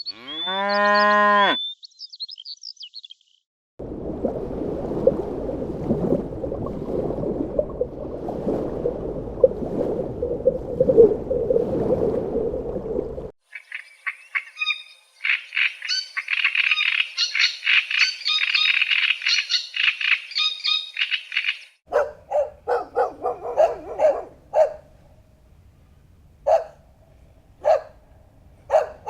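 A sequence of farm animal calls from separate clips. It opens with a short cow moo that rises and falls in pitch. After a brief gap comes a long rough, low, noisy stretch, then a long stretch of dense high-pitched twittering, then short calls repeated at uneven intervals.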